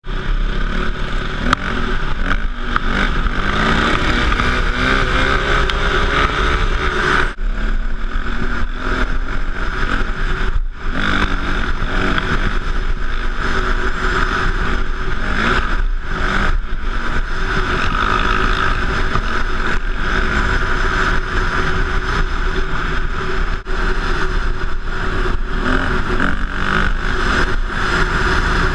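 KTM 450 EXC enduro bike's single-cylinder four-stroke engine under way, heard from the rider's helmet. It revs up and down as the bike speeds along a dirt trail, with brief throttle-off dips around seven and eleven seconds in.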